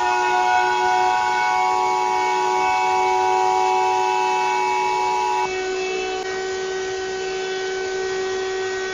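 Emergency Alert System alert tones: a steady chord of held electronic tones. The tones in the middle of the chord cut off suddenly about five and a half seconds in, and the rest hold on, a little quieter.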